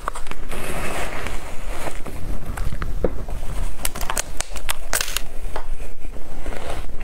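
A spoon digging into a bowl of crushed ice, then close-up crunching as a mouthful of the icy crystals is bitten and chewed. It starts as a grainy scraping and turns into sharp crackling crunches from about halfway through.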